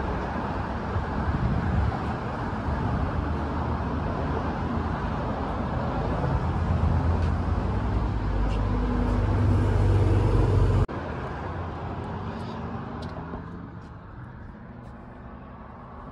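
Road traffic noise, a loud low rumble that ends abruptly about eleven seconds in and gives way to a much quieter background.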